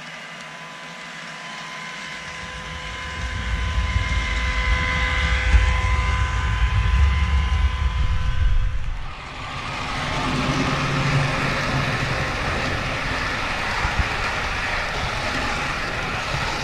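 Model TGV PSE train with sound running by: a steady whine of traction motors over a low rumble that grows louder after a couple of seconds. About nine seconds in, the sound changes abruptly to a dense rushing rolling noise.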